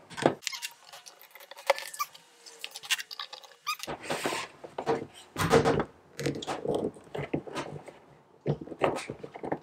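Irregular rubbing, scraping and knocking of clear vinyl tubing being handled against the wall of a plastic trash can, with the can shifted and tipped over onto its side.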